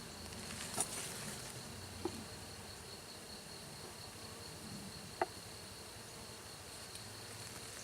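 Honeybees buzzing in a steady low hum over an open hive, with a steady high-pitched whine above it. A few short wooden knocks, about three, sound as the hive frames are pushed together.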